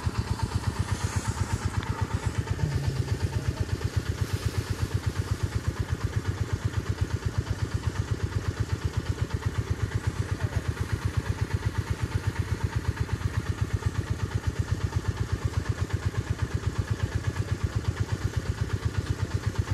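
An engine running steadily at a low idle, with an even chugging of about five or six pulses a second.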